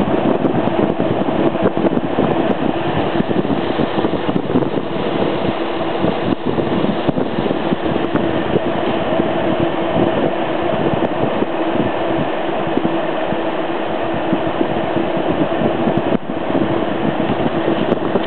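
MSR Reactor gas canister stove burning at full flame under its pot of water as it comes up to a boil: a steady rushing noise with a steady hum through it, with the water beginning to make a good bit of noise.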